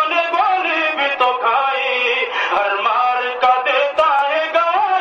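A man's solo voice reciting an Urdu nazm in a sung, chant-like melody, with long held and gliding notes and no instruments.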